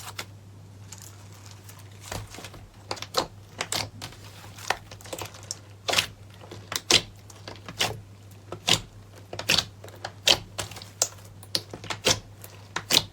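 Slime being squeezed and stretched by hand, giving sharp, irregular clicks and pops about one or two a second.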